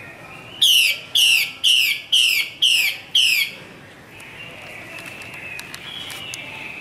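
Female Chinese hwamei calling: six loud, short notes in quick succession, each sliding down in pitch, about two a second, then stopping.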